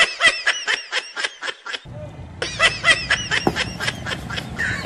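High-pitched giggling laughter in rapid short bursts, about seven a second. It comes in two runs broken by a short pause about two seconds in, with street background underneath the second run.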